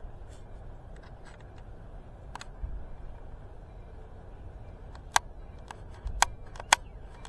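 A handful of sharp, irregularly spaced clicks over a low, steady rumble, the loudest clustered in the second half.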